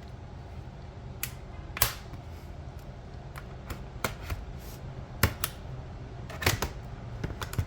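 Plastic bottom cover of a laptop being pried open with a prying tool: about a dozen sharp, irregular clicks and snaps as its clips give way.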